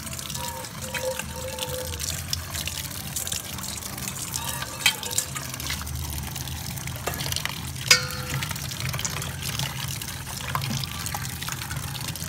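Hands squeezing and kneading wet shredded green vegetable pulp in water in a stainless-steel bowl: continuous squelching and splashing, with two sharp knocks against the bowl about five and eight seconds in. A steady low hum runs underneath.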